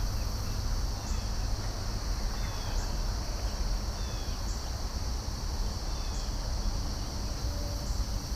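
Crickets trilling steadily, with a short faint chirp about every second and a half and a low rumble underneath.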